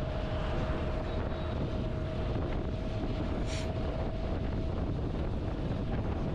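Steady wind rumble on the microphone, with a faint steady hum underneath.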